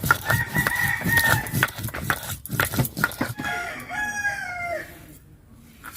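A rooster crowing twice: a short held call about half a second in, then a longer one about three seconds in that falls in pitch at the end. Through the first half come rapid sharp knocks, from whole spices being pounded on a stone grinder.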